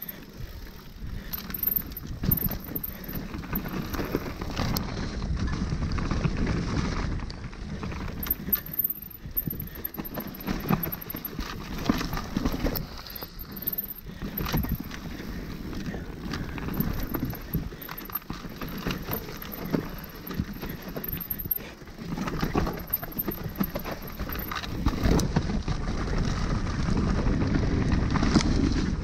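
Hardtail mountain bike ridden over a rough dirt trail: tyre noise with frequent rattling knocks over bumps, and wind rumbling on the microphone.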